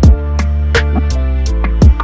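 Background music with a beat: heavy bass drum hits over held bass notes, with sharp percussive ticks in between.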